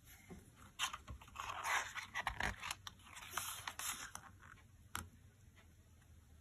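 Pages of a picture book being turned by hand: papery scraping and rustling with a few sharp clicks, dying away about four and a half seconds in, then a single tap near five seconds.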